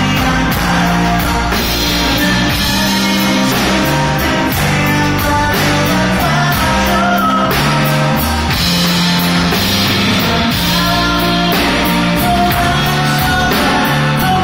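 Live rock band playing: electric bass line, drums keeping a steady beat and guitar, with a male singer singing over it in parts.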